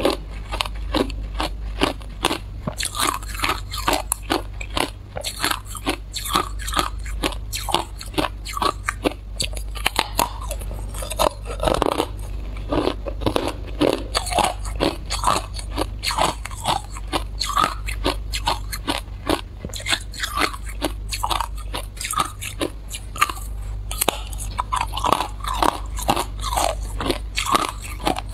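Hard, clear ice being bitten and chewed, crunching and cracking between the teeth in a dense, continuous run of sharp cracks, several a second.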